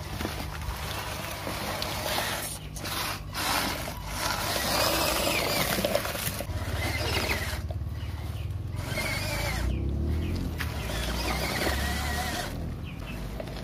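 Small electric RC pickup truck driving over loose gravel and dirt: its motor running and its tyres crunching and scraping on the stones.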